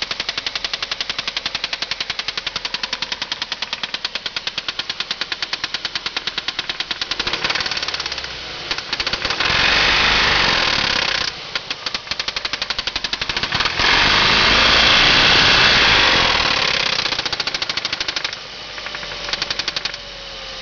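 2003 Ford Focus 2.3L four-cylinder engine running with a rapid, steady knock; it is revved twice, about ten and fourteen seconds in. The knock is rod knock from a spun connecting-rod bearing.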